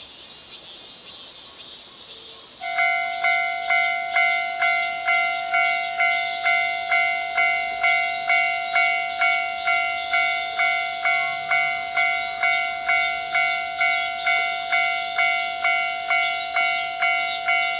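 Japanese railway level-crossing electronic warning bell. It starts about two and a half seconds in and rings steadily at about two strikes a second, each strike a clear ringing tone that fades before the next. It is the crossing's normal warning sound, signalling an approaching train.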